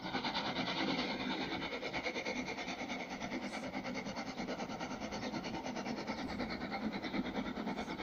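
Three-cylinder LMS Jubilee class steam locomotive 45690 Leander working hard in the distance, its exhaust beats coming so fast and even that they run together into a rasping rhythm.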